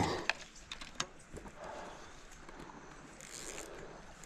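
Light clicks and scrapes of fishing gear being handled as a landing net with a caught fish is brought in and laid on a log, with a sharper click about a second in.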